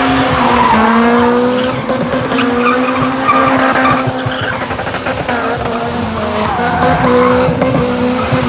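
Car engine held at high revs, its pitch wavering slightly up and down, while the tyres spin and squeal on the tarmac.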